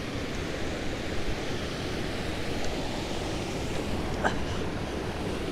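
Steady rush of water pouring through a dam spillway and over the rapids below it.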